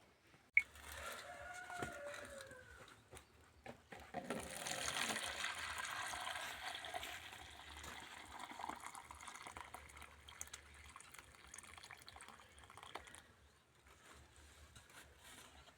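A rooster crows once about a second in. From about four seconds in, water runs or is poured with a splashing hiss for some nine seconds, then dies away.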